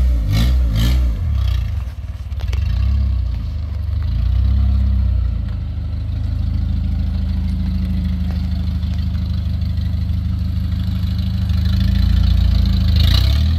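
Sixth-generation Honda Accord engine idling through its new exhaust, which has no catalytic converter: a steady, low exhaust drone, a little uneven for the first couple of seconds and then even.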